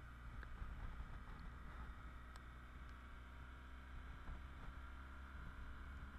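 BMW R1200GS boxer-twin motorcycle riding along, with its engine, the wind and the tyres on the wet road heard as a faint, steady hum and hiss.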